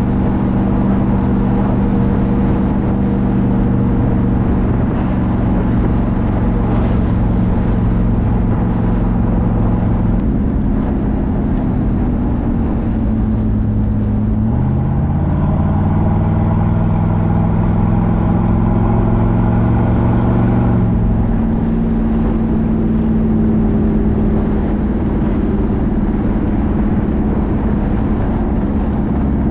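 Engine of a custom GT350 Mustang convertible with Holley Sniper EFI, running as the car is driven along the road. The engine note dips about ten seconds in, then rises as the car accelerates around fourteen seconds. It holds there until about twenty-one seconds in, then falls back to a steady cruise.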